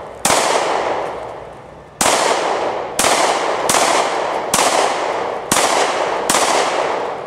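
Seven shots from a .40 calibre Sig Sauer pistol fired in a slow, uneven string, each shot followed by a long fading echo.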